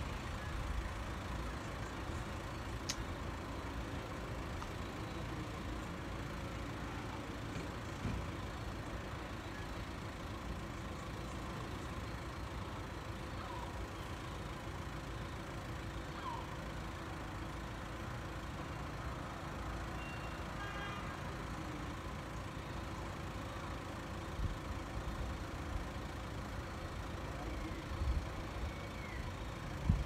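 A steady low city rumble, with a few faint seabird calls, short rising and falling cries, heard now and then in the second half.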